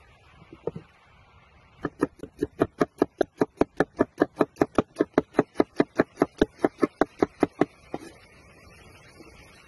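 Knife rapidly slicing a red onion on a wooden cutting board: a steady run of about five crisp chops a second, each stroke cutting through and knocking the board. The chopping starts about two seconds in and stops about two seconds before the end.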